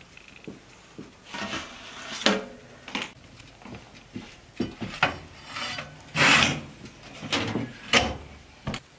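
Irregular scraping and knocking of a wooden peel against a metal baking tray and the stove's oven as baked lahmacun are lifted out and set down. The loudest is a scrape of about half a second roughly six seconds in, with a sharp knock near eight seconds.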